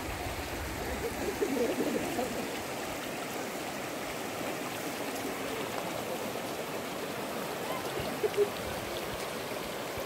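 Shallow monsoon stream running over a rocky bed, a steady rushing and gurgling of water, with two brief knocks a little after eight seconds in.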